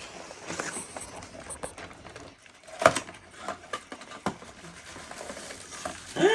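Scattered rustling and clicking of packaging being handled as a gift package is opened, with a sharp click about three seconds in and another a little after four. A goat bleats briefly at the very end.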